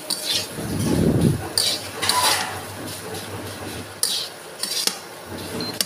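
Spatula scraping and stirring mashed potatoes around a kadhai as they fry in masala, several separate scraping strokes, with a low rumble about a second in.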